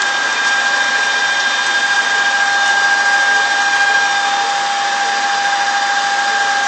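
Birmingham metal lathe running steadily with its power feed engaged: a constant high whine from the spindle and gearing over a steady mechanical hiss.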